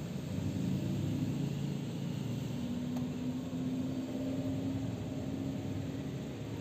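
Steady low mechanical hum of a running motor, its pitch wavering slightly, with one tone held steady through the middle.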